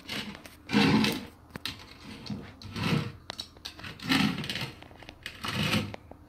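Wicker-basket water bowl holder with a bear figurine being dragged across a tiled floor by a cat's paw: short scraping rubs, four main ones about every one to one and a half seconds, with fainter scuffs between.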